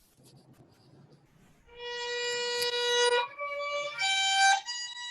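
Violin playing a few long bowed notes that step upward in pitch, starting about a second and a half in, heard over an online video call.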